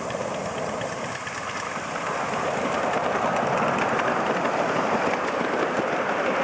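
Double-headed miniature live steam train running past on a ground-level track, getting louder about two seconds in as the locomotives come close and a long string of wagons rolls by, wheels rattling on the rails.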